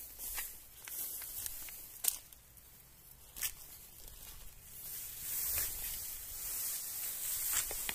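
Grass and leaves rustling under footsteps as someone walks through tall grass, with a few sharp snaps or clicks, the loudest about two seconds in, and a high hiss that swells from about halfway through.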